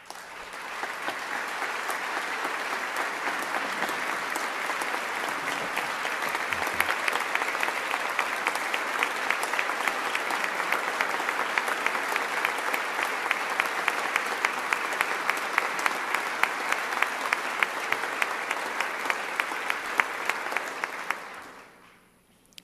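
Sustained applause from a large audience. It swells within the first second, holds steady with individual sharp claps standing out more toward the end, then dies away about a second before the end.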